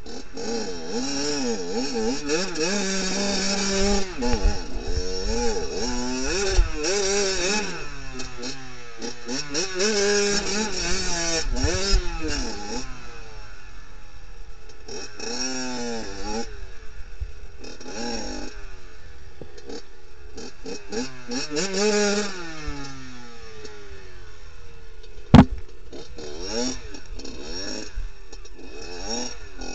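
Off-road motorcycle engine revving in repeated short bursts, rising and falling, as the bike is worked at a standstill on a steep rocky slope, with scraping clatter. A single sharp knock about 25 seconds in.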